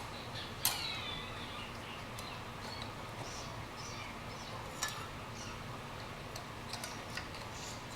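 Steel clutch plates and friction discs of a Harley-Davidson Twin Cam 88 clutch clinking as they are slid onto the clutch hub: a sharp metallic clink with a short ring about a second in, then a few scattered light clicks.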